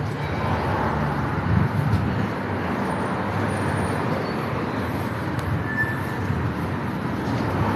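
Steady city street traffic noise: cars passing.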